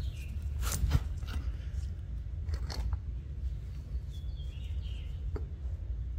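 Small clicks and scrapes of a John Deere X340 starter motor's carbon brushes and coil springs being pushed back into their holders on the brush plate, over a steady low hum. A few sharp clicks come in small clusters, and there is a faint high squeak about four seconds in.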